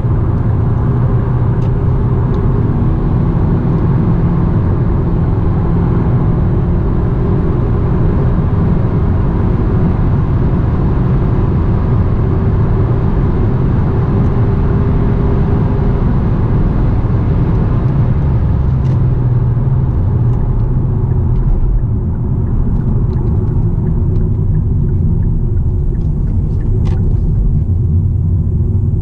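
Hyundai Sonata on the move: a steady low rumble of engine and road noise. The higher hiss thins out about two-thirds of the way through, and a few faint ticks come near the end.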